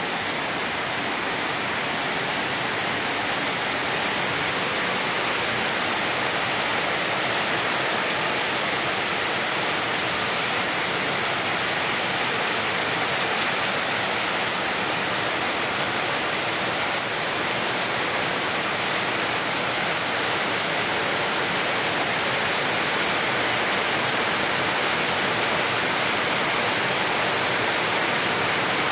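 Heavy typhoon rain pouring down steadily on roofs and ground, a dense, even hiss with no let-up.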